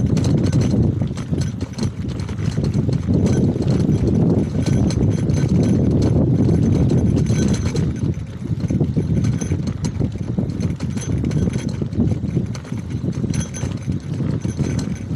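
Bicycle rolling along a road, rattling and knocking in quick irregular clatters, with wind rumbling on the microphone.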